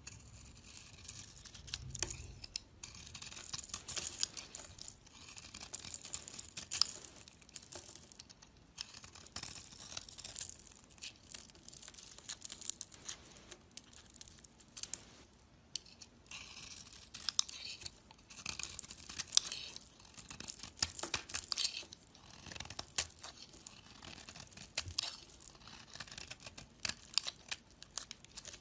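Dry bar soap being cut into small cubes, crisp crackling and crumbling with sharp little snaps, in spells of several seconds broken by short pauses.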